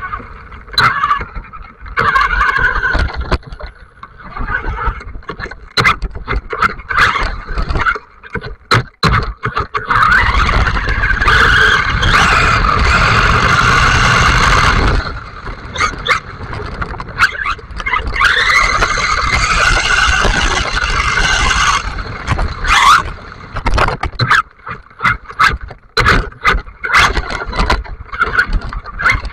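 Onboard sound of a 4x4 RC buggy's electric motor and drivetrain whining as the throttle goes on and off, with two long full-throttle runs about ten and eighteen seconds in. The tyres spray through water on a flooded road, and the chassis knocks and rattles over bumps, most often near the end.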